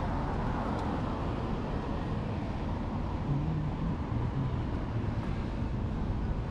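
Steady outdoor street ambience: a continuous low rumble with hiss.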